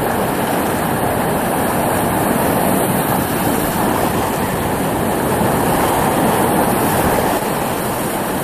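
Loud, steady rush of whitewater rapids close around the microphone, with spray splashing over it.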